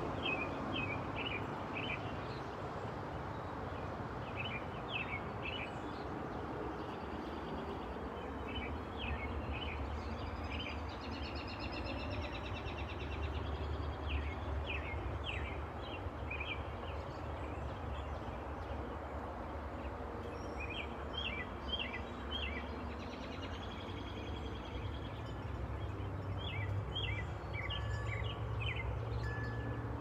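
Outdoor ambience: small songbirds chirping in short runs of quick high notes every few seconds, over a steady low rumble.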